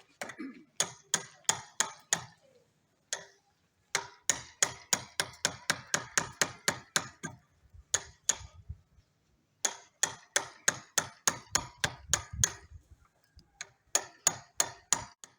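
Metal being struck with a hammer in quick runs of ringing blows, about four a second, with short pauses between the runs.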